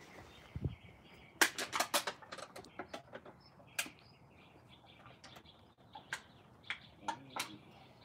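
Irregular sharp clicks and light metallic taps of small screws and a hand tool being handled while the front end of a motorcycle is put back together, with a quick flurry of clicks about one and a half seconds in and single clicks after that.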